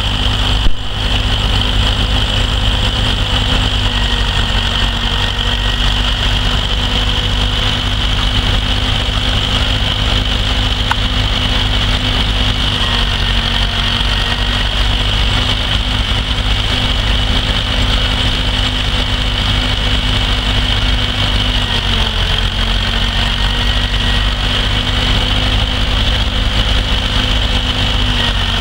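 McCormick W-6 tractor's four-cylinder engine running steadily under belt load, driving a threshing machine through a long flat belt, with the thresher's working noise mixed in. The engine note sags briefly a few times, and there is a single sharp click about a second in.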